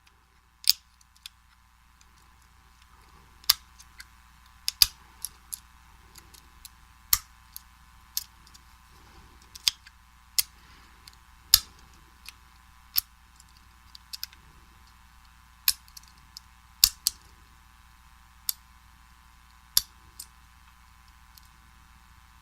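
A lock pick working the wafers of a vintage Slaymaker Super wafer padlock: sharp, irregular metallic clicks, about one a second, as wafers are lifted and set under tension.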